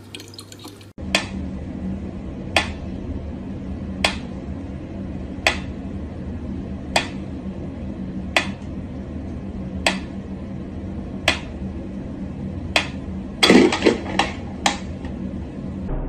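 Pyramid-shaped mechanical metronome ticking slowly and evenly, one sharp tick about every second and a half, over a steady low hum. Near the end, a brief louder clatter of several knocks.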